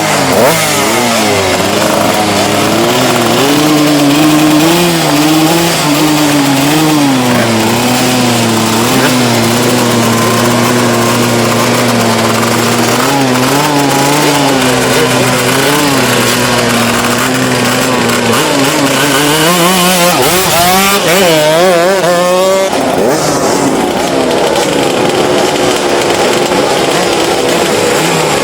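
Small-displacement racing motorcycle engine revving hard. It wavers at first, then holds a steady high rev for about ten seconds, is blipped rapidly up and down around two-thirds of the way in, and then settles to a steady rev.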